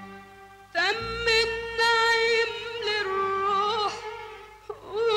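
A woman singing solo in a high voice: a long held, ornamented phrase with wavering pitch that enters about a second in over faint accompaniment, breaks off briefly near the end and starts again.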